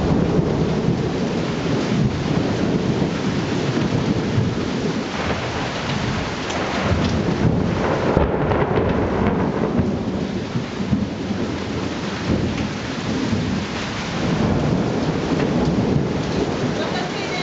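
Steady downpour of rain with thunder rumbling through it, an even wash of noise with no single sharp crack.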